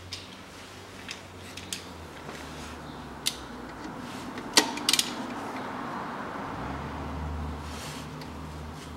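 Socket wrench tightening a transfer case drain plug back into its housing: scattered metal clicks and taps, the loudest a sharp click about four and a half seconds in followed by a couple more just after.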